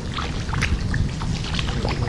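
Kayak paddling: water splashing and trickling off the paddle blades in a quick, irregular patter of drips, over a steady low rumble.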